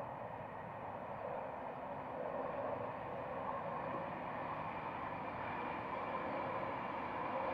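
Class 91 electric locomotive and its Mk4 coaches running at speed, a steady rushing rumble that grows slowly louder.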